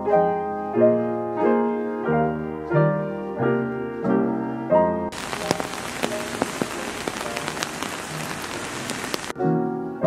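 Soft background piano music, a new note or chord about every three-quarters of a second. About five seconds in it gives way to steady rain hissing, with the taps of single drops, for about four seconds. Then the piano music returns near the end.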